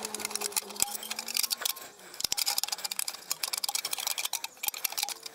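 Rapid, irregular metallic clicking and tapping of hand tools working against the gearbox housing, in clusters with a short break about two seconds in.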